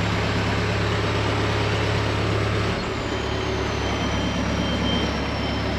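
Engine of a boom machine running with its hydraulic system working. Its low hum drops a little about three seconds in, while a thin high whine slowly falls in pitch. The hydraulics had kept cutting out, which the owner puts down to a chafed wire, and they are working again at this moment.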